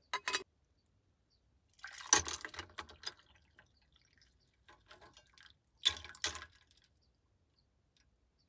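Short clicks and clinks of small hard objects being handled, in a few groups: a quick pair at the start, a cluster about two seconds in, and another pair near six seconds.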